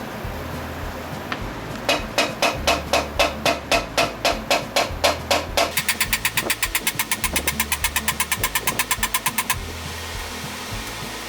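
A hammer striking metal on the old lathe in a steady run of sharp, ringing blows at about four a second, then quicker, lighter taps at about seven a second that stop shortly before the end.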